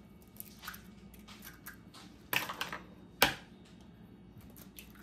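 Eggs being cracked into a mixing bowl: small crackles of breaking shell, with one sharp loud tap a little over three seconds in.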